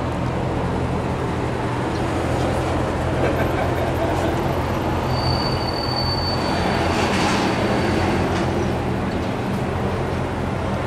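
Steady low hum of background traffic and machinery. A vehicle passes, swelling about seven seconds in, with a thin high squeal over it for a few seconds.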